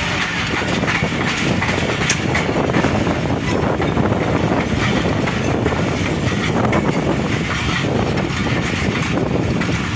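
Passenger train running along the track, heard from an open coach doorway: a steady rumble of wheels on rails with a constant fine clatter.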